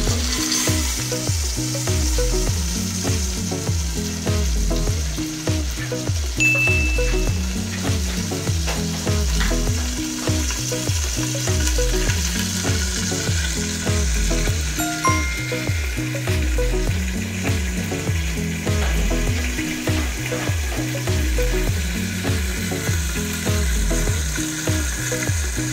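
Chicken sizzling as it fries without oil in a covered stainless electric skillet, a steady high hiss. Background music with a rhythmic bass line plays throughout.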